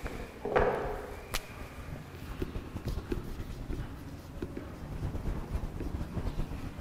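A thump and a sharp click in the first second and a half as a person steps to a whiteboard, then a marker pen writing on the whiteboard in short strokes, with light footsteps and shuffling.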